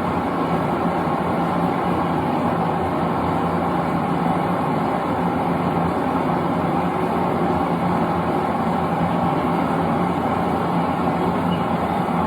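Propane forge burner running with a steady, unchanging roar and a low hum underneath.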